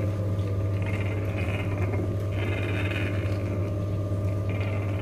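Wooden ghani (traditional wooden oil mill) running as it grinds powdered copra: a steady low drive hum, with a scraping swish from the wooden pestle in the mortar coming round about every two seconds.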